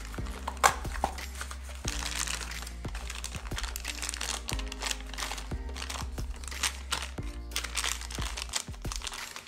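Packaging being crinkled and rustled while parts are unboxed by hand, with scattered small clicks and knocks, over background music with a steady bass.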